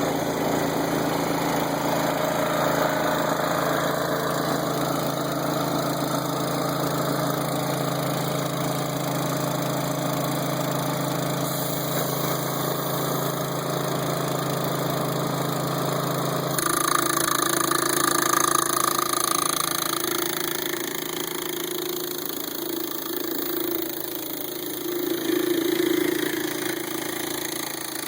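An engine running steadily at a constant speed, with an abrupt change in its sound about two-thirds of the way through.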